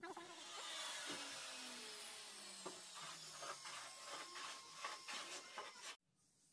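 A machine whirr that slowly falls in pitch, like a motor winding down, with a few faint clicks. It cuts off abruptly about six seconds in.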